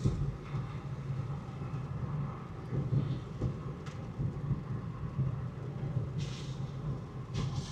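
A car driving on a wet highway in the rain, heard from inside: a steady low rumble of engine and tyres with an even hiss and a few brief swishes.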